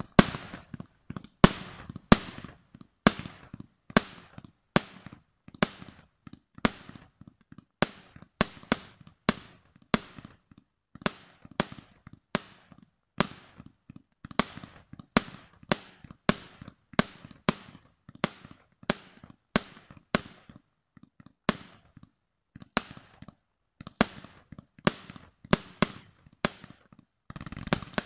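Aerial firework shells bursting in a steady sequence of sharp bangs, about one or two a second, each with a short fading tail. Near the end a denser crackling barrage begins.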